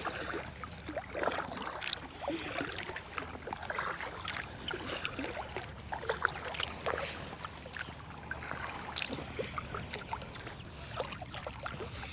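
Kayak paddle working the water: irregular small splashes and drips from the paddle blades, over a faint steady low hum.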